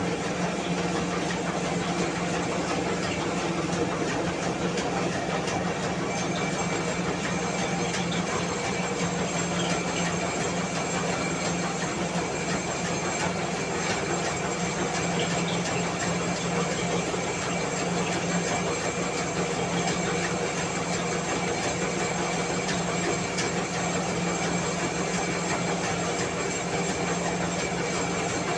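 Mini rice mill running steadily while milling rice: a steady hum under dense, unbroken machine noise.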